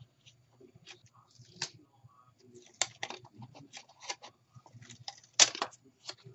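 Crinkling and rustling of adhesive-backed aluminium foil as its paper backing is peeled off by hand: a run of small, irregular crackles, with one louder rustle about five seconds in.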